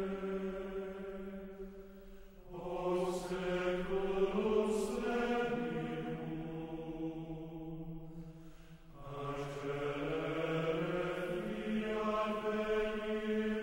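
Low male voices chanting slow plainchant on held notes that move in steps, in phrases with short breaks about two and a half and eight and a half seconds in.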